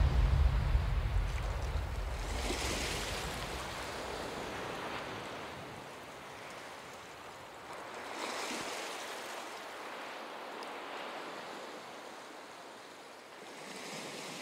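Small waves breaking and washing up a sandy shore, the surf hiss swelling about every six seconds. Background music fades out over the first few seconds.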